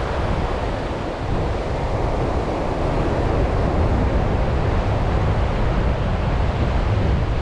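Steady wind noise on the microphone, with ocean surf washing in behind it.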